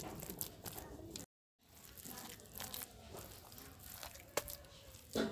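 Hands squeezing and pressing moist ground bottle gourd leaf paste against a board, giving soft crackly squishes and light scrapes, with one sharper tick near the end. The sound drops out to silence briefly about a second in.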